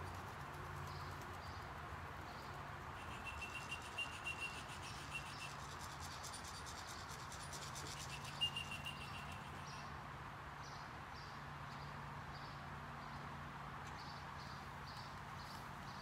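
Outdoor ambience with a steady low hum and faint high bird chirps, broken by a few sharp claps of pigeon wings about four seconds in and once more, loudest, about eight seconds in.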